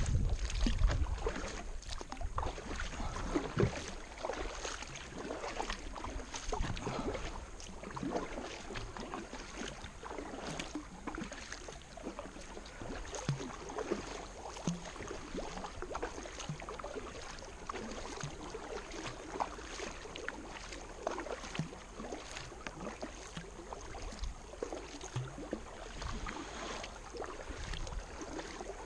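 Kayak paddle strokes: repeated irregular splashes and trickling water as the blades dip and lift. A low rumble is heard for the first second or two.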